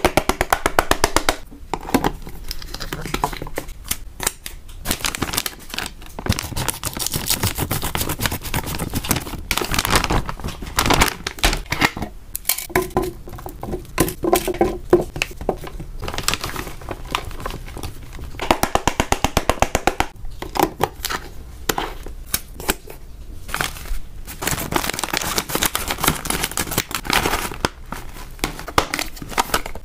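Hamster snack packaging being handled up close: plastic crinkling and tearing, mixed with runs of quick clicks and taps as dry snacks and tongs meet clear plastic containers.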